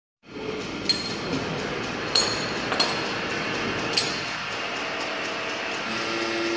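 Hydraulic press running with a steady mechanical hum, with a few sharp metallic clinks in the first four seconds.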